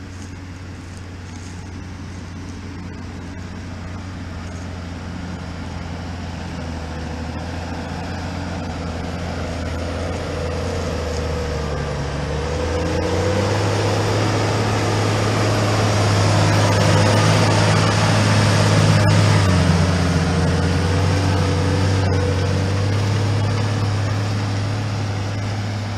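New Holland T7 tractor's diesel engine running steadily under load while pulling a five-furrow plough through stubble. The sound grows louder through the first two-thirds, the engine note shifts about halfway through, and it eases off a little near the end.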